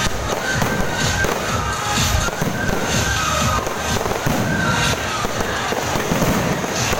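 Fireworks display: aerial shells bursting in quick, continuous succession, with music playing over the bangs.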